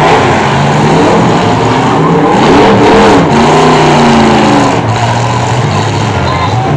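Several demolition derby car engines revving together, their pitches rising and falling in overlapping swells.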